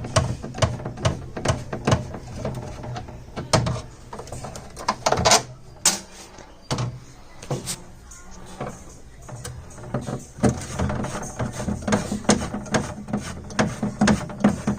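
Background music, with repeated short clicks and knocks of hands handling parts throughout.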